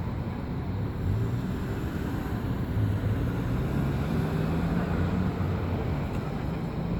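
Motor vehicle engine running with a low hum that rises slightly in pitch about halfway through.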